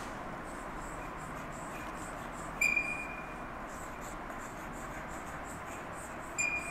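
Chalk writing on a chalkboard: soft scratching strokes, and twice a short high-pitched squeak of the chalk, the loudest sounds, once a little before the middle and once near the end.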